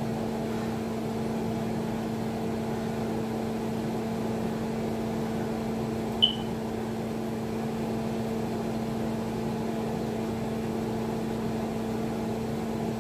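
Steady hum of a running kitchen appliance or fan, with a constant low tone. A single short high-pitched ping about six seconds in.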